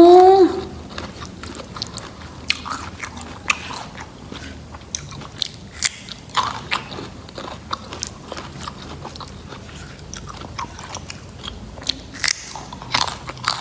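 Close-miked biting and crunchy chewing of raw rattan shoot, the peeled inner core of the rattan stem, with many short crisp crackles. It opens with a short, loud rising hum.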